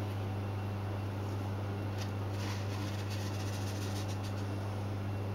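A steady low hum, with faint gritty rustles of coarse salt being pushed about by hand over a salmon fillet on a metal baking tray from about two seconds in.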